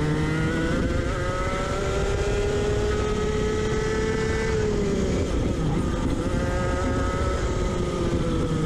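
Racing go-kart engine at full throttle, heard from onboard, its pitch climbing and then holding high. About halfway through the revs drop as it comes off the throttle, then settle at a lower, steady pitch, with wind and road rumble underneath.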